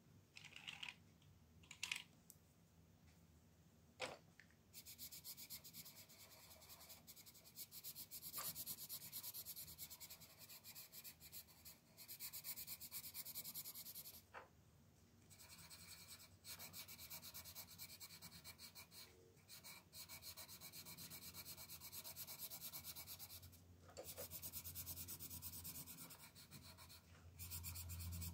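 Pink coloured pencil shading on a colouring-book page: quick scratchy back-and-forth strokes in runs of a few seconds with short pauses between them. A few light clicks and taps come in the first seconds, before the shading starts.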